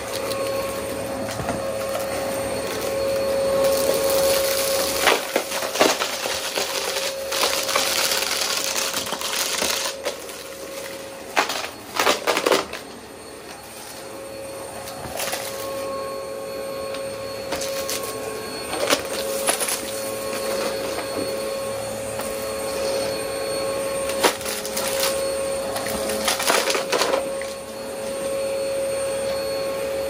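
Vacuum cleaner running with a steady motor whine and a rustling floor noise that rises and falls, broken by a few sharp knocks, the loudest a cluster about twelve seconds in.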